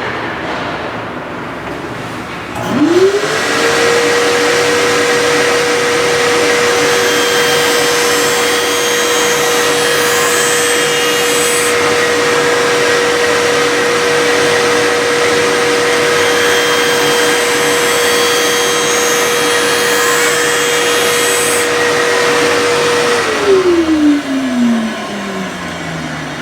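Skate sharpening machine's motor starting up, running at a steady pitch with a hiss over it for about twenty seconds while the blade is ground, then spinning down with a falling tone near the end.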